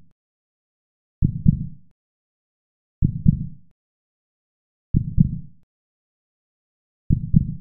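Heartbeat sound effect: a low double thump, lub-dub, four times about two seconds apart, with dead silence between beats.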